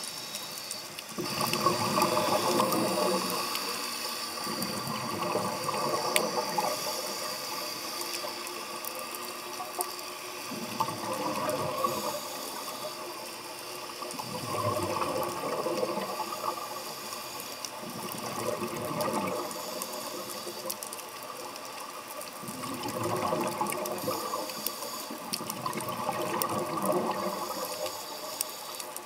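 Scuba diver breathing through a regulator underwater, heard through the camera housing: about six surges of exhaled bubbles a few seconds apart over a steady watery hiss.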